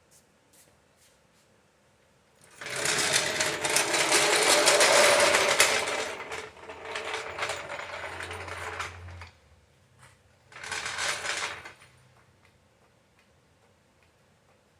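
Arc welding on steel rock sliders: a steady electric crackle and buzz for about six and a half seconds, louder in its first half, then a shorter second weld of about a second.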